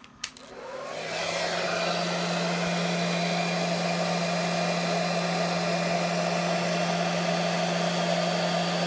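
Hair dryer switched on with a click, spinning up over about a second and then blowing steadily: a constant hum under a rush of air.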